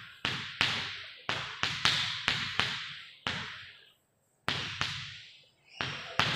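Chalk on a chalkboard as numbers are written and arrows drawn: about a dozen sharp taps, each followed by a scratchy hiss that fades, with a brief pause about four seconds in.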